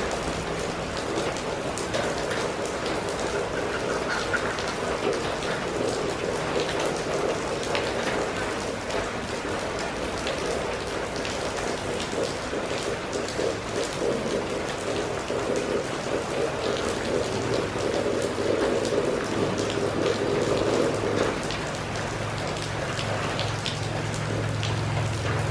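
Steady rain falling on a flooded street, a dense patter of drops on standing water and pavement. A low steady hum comes in over the last several seconds.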